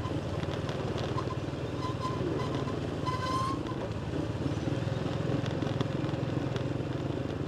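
Small motorcycle engine running steadily at low, even speed while riding along. There is a short high chirp a little over three seconds in.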